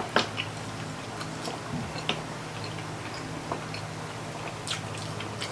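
Close-up eating sounds of someone chewing pork baby back ribs: scattered short clicks and mouth smacks over a steady low hum.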